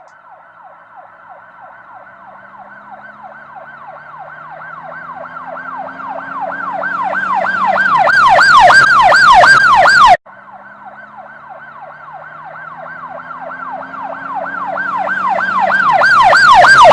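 Emergency-vehicle siren in a fast yelp, wailing up and down about three to four times a second and growing steadily louder. It cuts off abruptly about ten seconds in, then starts again quiet and builds up the same way, like a looped sound effect.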